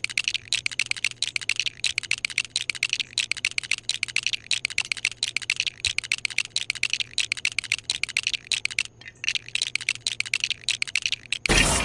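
Rapid, regular scraping strokes, several a second, like hand sanding or brushing, with a brief pause about three-quarters of the way through and a faint steady hum underneath.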